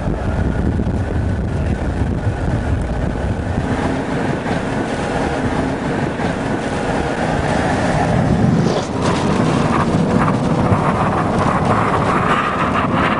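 Strong tornado wind rushing and buffeting the microphone, with a vehicle's engine and road noise underneath. It grows louder and harsher about eight seconds in.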